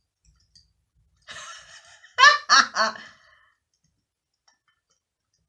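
A woman laughing: a breathy lead-in, then three short, loud bursts of laughter about two seconds in.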